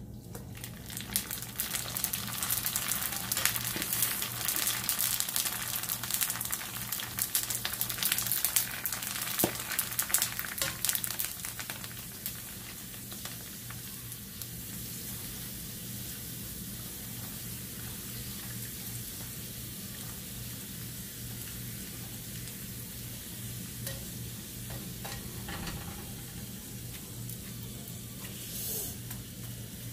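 Golgappa (pani puri) dough rounds frying in hot oil in an iron kadai while a metal skimmer turns them. A loud, crackling sizzle with many sharp pops as the fresh dough puffs up, dropping about twelve seconds in to a steady, softer sizzle as the puffed puris finish cooking.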